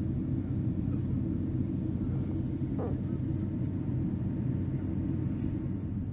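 Steady low rumble of engine and airflow noise heard inside the cabin of a Boeing 767-300 airliner, with a brief faint higher sound about halfway through.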